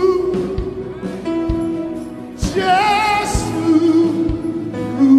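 Live gospel worship music: vocals holding long notes with wide vibrato over sustained chords, with a slow, steady drum beat.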